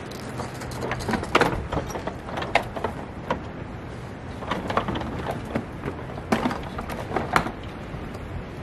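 Husky plastic tool cart loaded with tools and fluid bottles being pushed up a wooden ramp: its casters rolling over the boards while the load rattles and clunks in scattered, irregular knocks.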